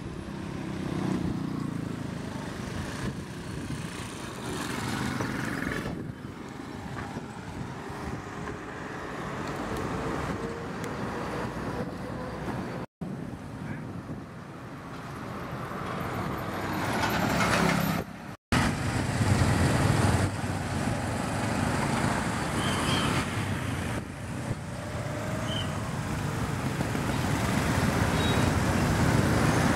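Road traffic: small motorbike engines and tyres passing on a busy street, a steady mix that grows louder in the last third, broken by two brief dropouts.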